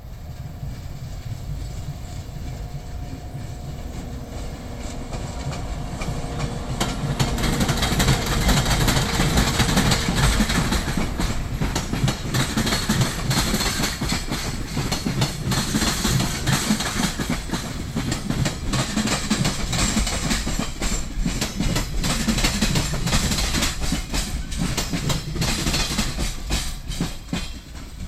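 Freight train hauled by an EF64 electric locomotive passing close by, its wheels clattering rapidly over the rail joints. It grows louder over the first several seconds, stays loud, and drops away at the very end.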